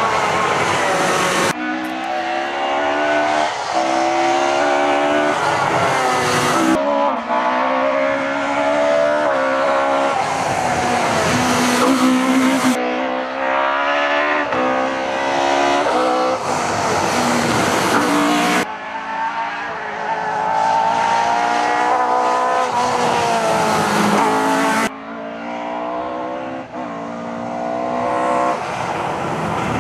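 Rally cars driven hard on a stage, their engines revving up and dropping back through gear changes. The sound changes suddenly every five or six seconds as one car's pass gives way to the next.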